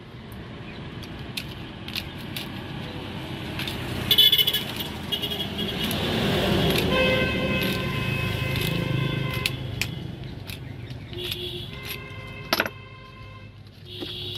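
Vehicle horns honking amid passing traffic: one long, steady blast from about 7 to 9.5 seconds in over the rising noise of a passing vehicle, then shorter honks near the end. A few sharp knife taps on the hard shell of a wood apple come through as well.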